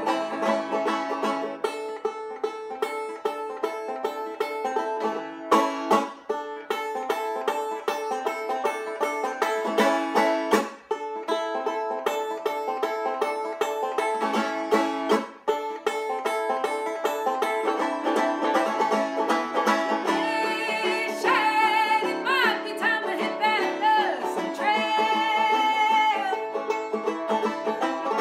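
Banjo played solo at a brisk pace: an instrumental break of fast, densely picked notes with no singing.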